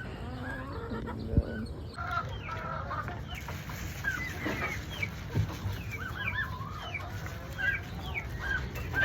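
Chickens clucking and calling in short, repeated notes, with a single sharp knock about a second and a half in.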